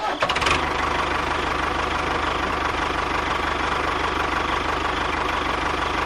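Tractor engine idling steadily with a fast, even chugging.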